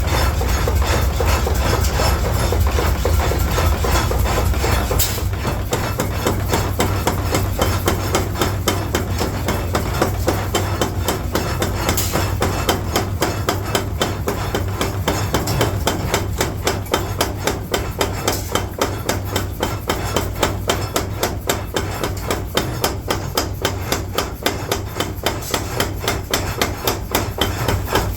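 Steady, rapid hammer blows on steel during the forging of a masonry trowel, about three strikes a second, growing more distinct toward the end. A low machine rumble sits under the first few seconds.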